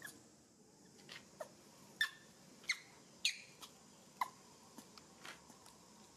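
Macaque chewing a piece of food: sharp wet mouth clicks and short squeaky smacks, scattered about once a second.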